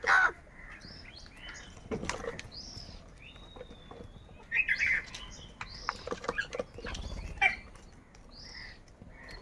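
A flock of crows calling in repeated short, harsh bursts, the loudest right at the start and again about halfway, with the higher chirping calls of other small birds mixed in.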